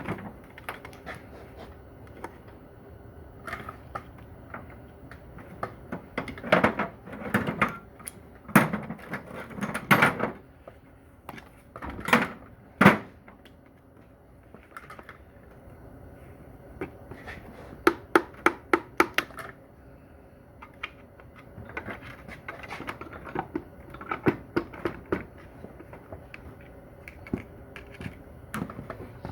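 Hand tools working on a Corvair Powerglide transmission, making scattered metallic clanks, knocks and clicks in bursts, with a quick run of even clicks a little past the middle.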